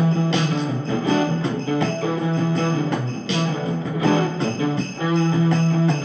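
Instrumental music with held notes and a repeating rhythm.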